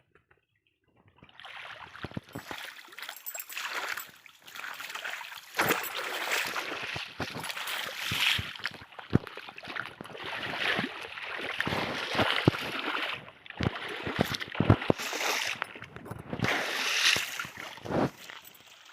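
Water splashing and gurgling in uneven surges, with many sharp clicks among them, starting about a second in.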